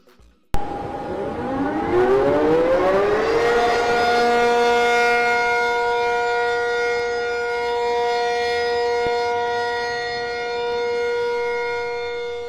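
Civil-defence air-raid siren starts abruptly, winds up in pitch over about three seconds, then holds one steady wailing tone and begins to fade near the end. It is the alert sounded to clear the streets for an air-raid drill.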